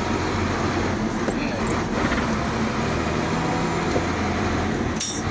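Cab noise of a FAW heavy truck on the move, its diesel engine running steadily underneath. A short burst of hiss comes near the end.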